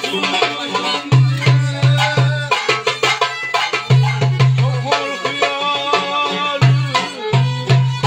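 Live Turkish folk dance music with no singing: a violin plays a gliding melody over a darbuka's deep strokes, which fall in quick runs of three or four, while a banjo-like lute plays along.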